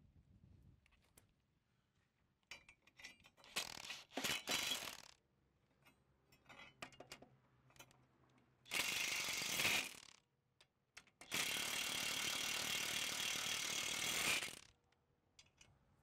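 Cordless impact wrench hammering bolts into a corn head stalk roll. There are short bursts a few seconds in, a run of about a second near the middle, and a longer run of about three seconds near the end, with light clicks of metal parts being handled in between.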